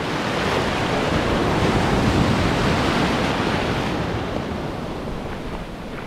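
Ocean surf washing in over a sandy beach, swelling to a peak about two seconds in and easing off toward the end.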